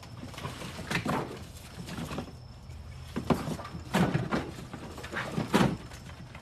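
Several separate knocks and clunks of objects being moved and set down, about five over a few seconds, over a steady low hum.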